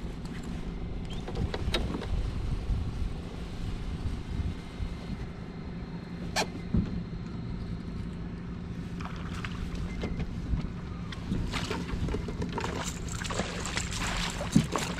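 A fishing kayak's electric trolling motor humming steadily under a low rumble of wind on the microphone. From about 11 seconds in, a run of clicks and rattles of rod and gear handling as a fish is worked to the kayak.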